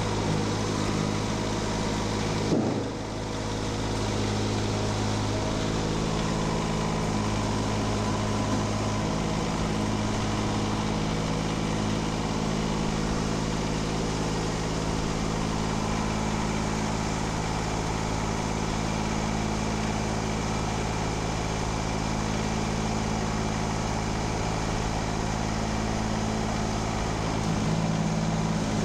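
Kubota diesel engine of a Steiner 430 Max tractor idling steadily, with a short knock about two and a half seconds in.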